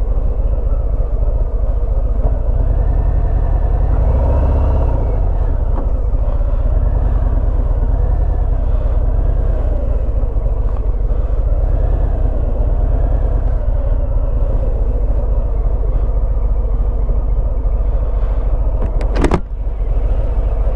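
Harley-Davidson Fat Bob's Milwaukee-Eight 107 V-twin running steadily while riding slowly. A single sharp click comes about a second and a half before the end.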